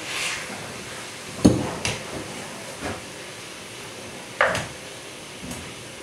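Cooking utensils knocking and clattering against a pot, five sharp knocks with the loudest about a second and a half in, over a steady hiss.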